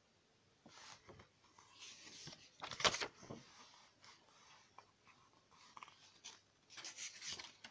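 Paper rustling as the pages of an album photobook are handled and turned, in a few short flurries, loudest about three seconds in, with another flurry near the end as a page is flipped over.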